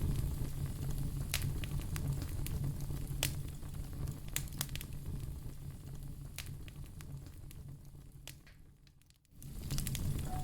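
Wood fire crackling, with irregular sharp pops and snaps over a low rumble. Near the end it fades almost to silence for about half a second, then comes back.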